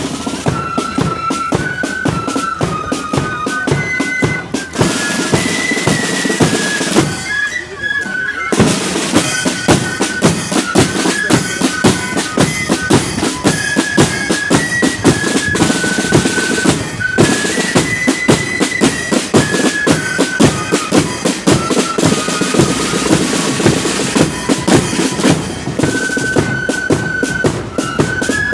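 Marching flute band playing: a high flute melody over rapid side-drum strokes and bass drum beats. The drums drop back briefly about eight seconds in while the flutes carry on.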